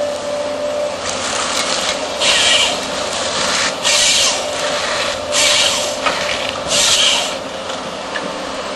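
AFM 58 Husky harvester head on an excavator working a tree stem, with four loud rasping bursts of wood noise about a second and a half apart over the steady running of the machine.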